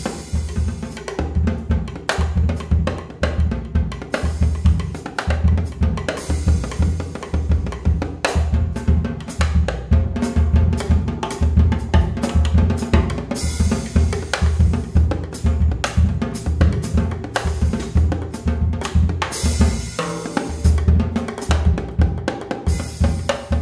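Jazz drum kit playing a busy samba-jazz passage, dense hits over steady low thumps, with cymbal crashes about 13 and 19 seconds in.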